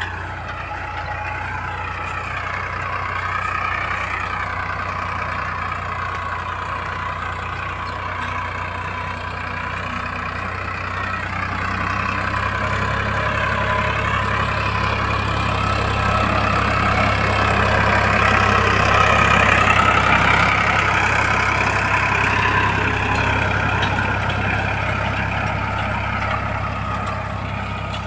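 Farmtrac 60 tractor's diesel engine running steadily under load while it pulls a disc harrow through field soil. It grows louder as the tractor passes close, about two-thirds of the way in, then eases off again.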